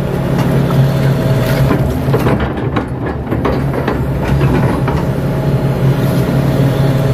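KATO HD512 crawler excavator's diesel engine running steadily under work, heard from inside the cab. Scattered light knocks and rattles come through as the bucket works wet mud.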